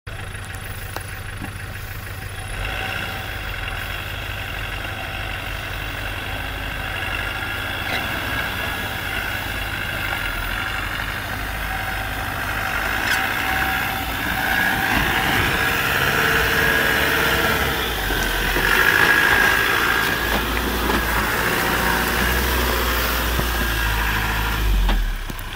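Land Rover Defender diesel engine running steadily as the 4x4 crawls along a rough off-road track, growing somewhat louder in the second half.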